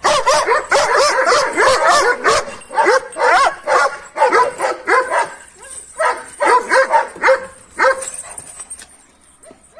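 Large chained Kangal-type shepherd dog barking excitedly in a rapid string of barks, about three a second. The barks thin out and fade away near the end.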